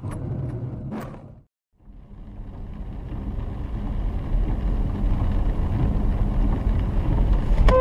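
Steady low rumble of a vehicle's engine and tyres on a wet road, heard from inside the vehicle, growing louder after a brief gap of silence. A horn begins to sound right at the end.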